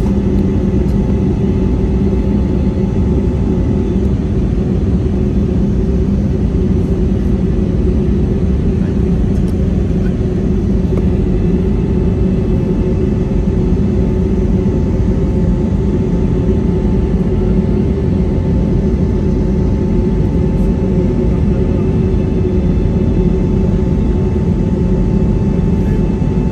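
Airbus A320neo's geared turbofan engines running at climb power, heard inside the cabin beside the wing: a steady rumble with a few steady hum tones through it.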